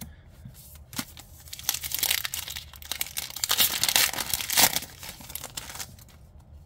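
Foil trading-card booster pack wrapper crinkling as it is opened and handled, loudest from about three and a half to five seconds in, then dying away.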